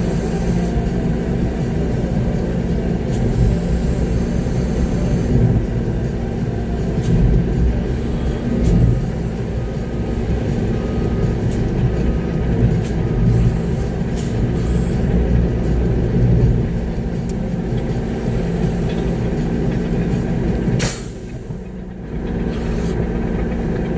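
Concrete mixer truck's diesel engine running steadily, heard from inside the cab, with scattered clicks and rattles and a brief dip in level near the end.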